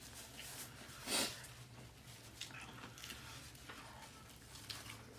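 Quiet chewing of tacos, with faint crunches and small clicks, and a brief breathy noise about a second in.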